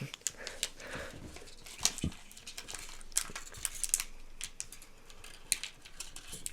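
Plastic snack packaging being handled, with scattered small crinkles and clicks.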